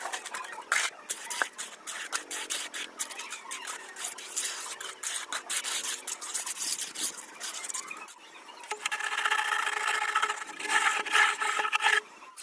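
A hand tool scraping and rubbing across concrete in quick, irregular strokes. About nine seconds in, a steady pitched whine with several tones joins for about three seconds and stops suddenly.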